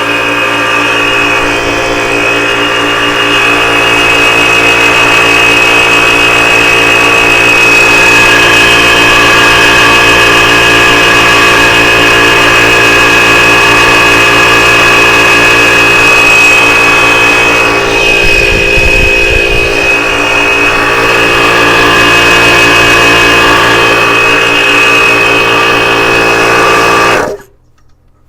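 Tuxing PCP high-pressure air compressor running steadily, a loud motor hum and whine with its cooling fan, then switched off abruptly near the end. It is running but building almost no air pressure.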